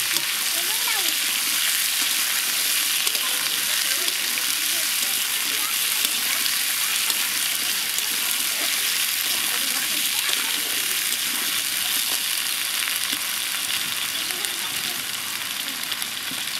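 Food frying in hot oil in a pan: a dense, steady sizzle that eases off slightly over the last few seconds.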